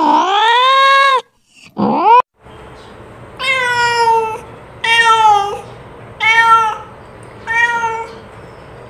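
Domestic cat meowing. A long, drawn-out meow ends about a second in and a short rising one follows. Then come four shorter meows about a second and a half apart, with a faint hum behind them.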